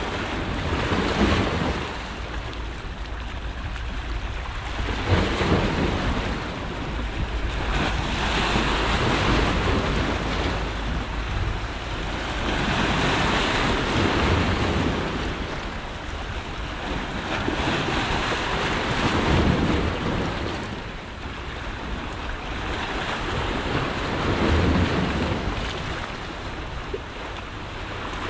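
Black Sea waves washing in and breaking against shoreline rocks, the surf swelling and fading every four to five seconds. Wind rumbles steadily on the microphone underneath.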